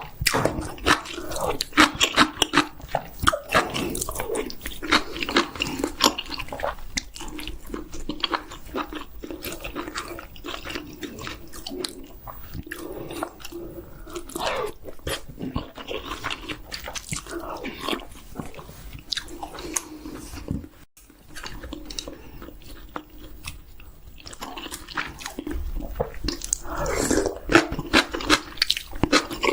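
Close-miked eating sounds: a person biting into and chewing chicken, with wet smacking and crunching, in many irregular bites and chews.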